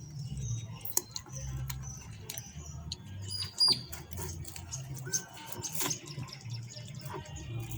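Small birds chirping repeatedly in short, high chirps, some falling in pitch. Scattered sharp clicks run through it, with one louder knock about halfway through, over a low hum.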